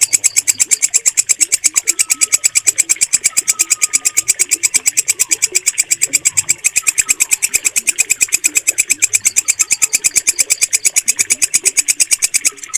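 Walang kecek, a green bush cricket, stridulating in a steady, rapid train of sharp, high chirping pulses, with a brief break near the end.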